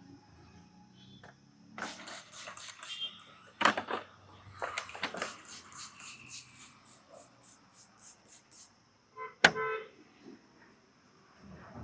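Hands slapping and tapping a head during an Indian head massage, in quick rhythmic runs of sharp strokes, with one louder strike about nine seconds in.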